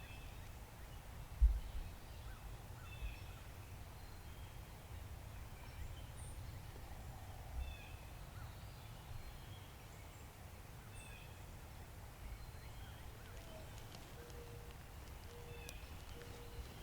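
Quiet outdoor ambience with a steady low wind rumble and scattered short bird chirps. There is a single sharp thump about a second and a half in, and three short, even notes near the end.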